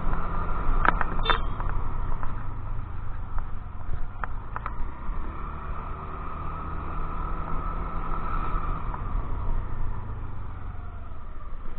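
Motor scooter riding steadily: the engine running under a low wind and road rumble, with a few short clicks.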